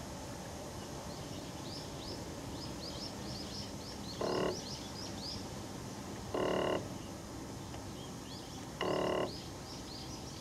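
Sky-Watcher EQ8 mount's RA-axis stepper motor buzzing in three short bursts about two seconds apart, each under half a second: the motor chattering and stalling instead of slewing when the East/West button is pressed briefly. Faint quick high chirps run in the background.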